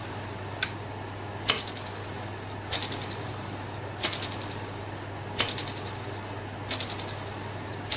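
Thermoacoustic Stirling engine on a test run with a steady low hum, cut by a sharp click about every second and a quarter. This is a run the builder found disappointing, with the engine not running well.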